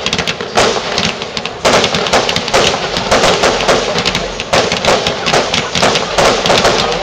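Fireworks display firing a rapid barrage of bangs and crackling, several reports a second, with stronger volleys starting about half a second and a second and a half in.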